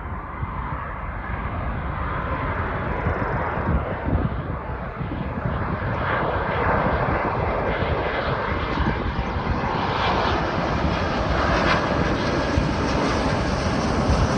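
Jet engine noise from a Boeing 777-200ER airliner on its landing approach, a steady rush that grows gradually louder and brighter as the aircraft draws nearer.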